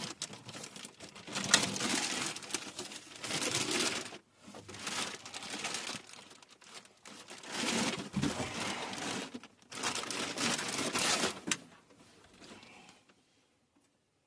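Packaging being handled and crumpled: repeated bursts of rustling and crinkling that stop shortly before the end.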